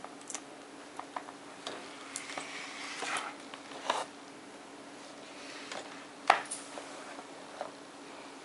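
Stiff card pages of a pop-up insect book being handled and turned: soft rustling with scattered light taps. The rustling is heaviest around two to three seconds in, and a sharp tap about six seconds in is the loudest sound.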